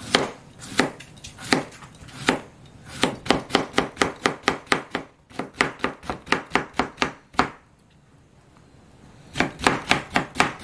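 Kitchen knife chopping Korean zucchini on a plastic cutting board. A few slow single cuts come first, then fast, even chopping at about five strokes a second as the slices are cut into thin strips. It pauses for under two seconds near the end, then the fast chopping starts again.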